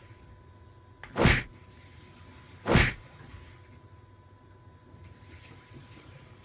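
A cat fighting a vacuum cleaner that is switched off: two short, loud, noisy bursts about a second and a half apart, with quiet in between.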